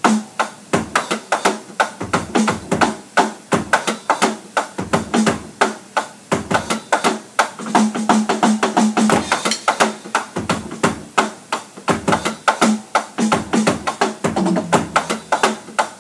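Electronic drum kit played in a steady, fast groove of evenly spaced strokes, with the hi-hat opened on the 'e' of the beat as a syncopated accent, and occasional deeper drum hits.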